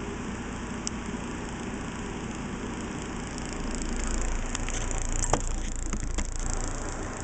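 Steady hum of room noise. About four seconds in, rustling and a few sharp clicks come as the camera is handled and swung around; the sharpest click falls a little past five seconds.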